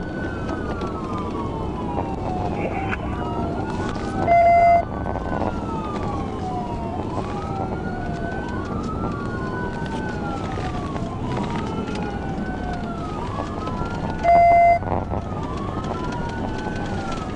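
Police car sirens wailing in a slow rise and fall, two wails overlapping out of step, over steady road noise. Twice, about four seconds in and near the end, a short, loud, steady tone sounds over them.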